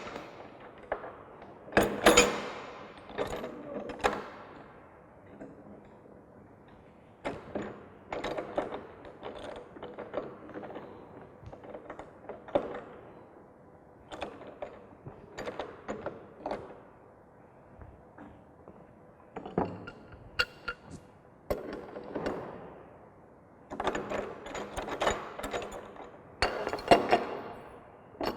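Pipe fittings and hand tools being handled during pipework assembly: irregular knocks, clicks and short scraping sounds, with a few sharper knocks about two seconds in and near the end.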